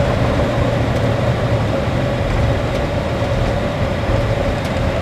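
Steady rumble and roar inside an Airbus A321-200 cockpit as the airliner decelerates on the runway during its landing rollout, with a steady hum running through it.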